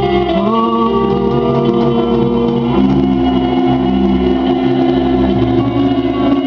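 Live music: a woman singing long held notes into a microphone over electric guitar, her voice sliding up into a note about half a second in.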